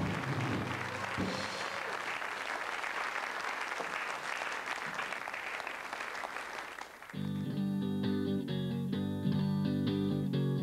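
Studio audience applauding. About seven seconds in, an electric guitar starts strumming chords, opening a song.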